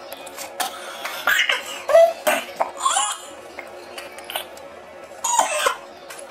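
A boy coughing and making short muffled vocal noises while eating, with scattered clicks and knocks from handling things close to the microphone.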